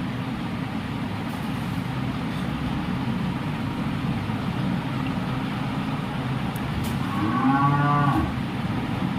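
A cow moos once, a single long call about seven seconds in, over a steady low background hum.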